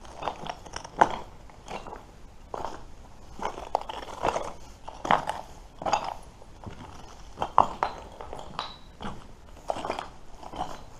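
Footsteps at a slow walking pace, about one step a second.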